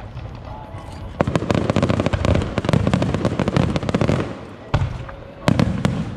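Aerial firework shells bursting overhead: a dense run of rapid crackling pops from about a second in until past four seconds, then a few separate sharp bangs near the end.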